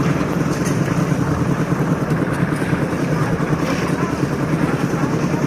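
An engine running steadily at constant speed, with a fast, even low drone.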